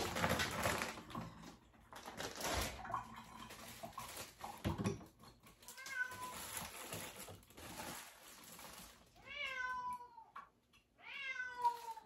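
Domestic cat meowing: a faint short meow about halfway through, then two long, loud meows near the end. There is some faint clatter in the first half.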